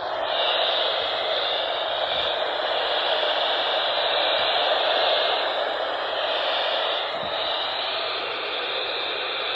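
Steady hiss of radio static from a weather radio receiver tuned to a weak or dead signal, thin in sound like audio from a small radio speaker.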